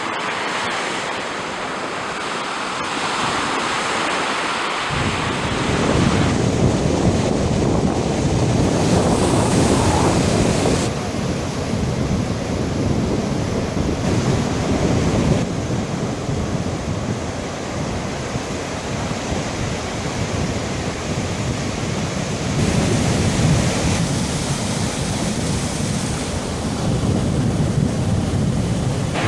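Sea surf: waves breaking and washing on the shore as a continuous noise, its character changing abruptly several times, with a heavier low rumble from about five seconds in.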